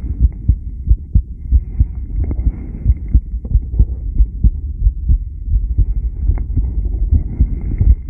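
A person's heartbeat recorded during a rebreathing test: a steady run of low beats close together. A fainter breathing hiss rises twice, about two seconds in and again near the end.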